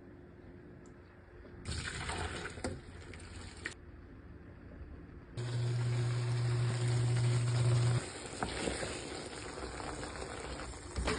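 Running water in a kitchen in two stretches: a short one near the start and a longer one from about halfway, with a low hum during the first few seconds of the longer stretch.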